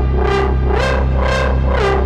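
Moog Subsequent 37 analog synthesizer played in duophonic mode: a steady low bass note is held under a higher voice that repeats about twice a second, each note opening bright and then closing down. The upper note slides up in pitch about a third of the way in and back down near the end.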